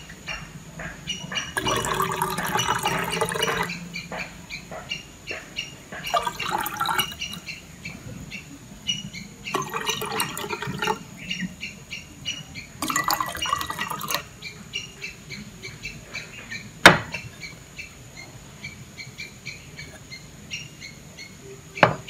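Butterfly pea flower tea poured from a drinking glass into four glasses in turn, four pours of one to two seconds each, followed by a single sharp glass clink, the loudest sound.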